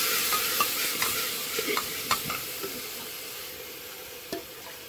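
Food sizzling in a pan and being stirred, with a few sharp clicks of a utensil against the pan. The sizzle fades gradually.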